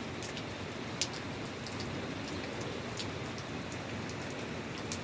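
Steady rain falling, an even hiss with a few louder close drops ticking now and then.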